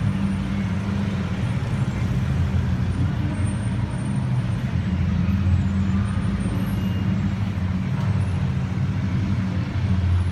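Steady low rumble of road traffic on a multi-lane road, with cars, motorcycles and a van passing.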